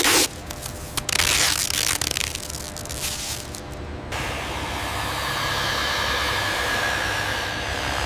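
Short hissing bursts of spray, like a paint spray gun. After an abrupt change about four seconds in, a steady rushing noise with a faint high whine follows, like a jet airliner's engines.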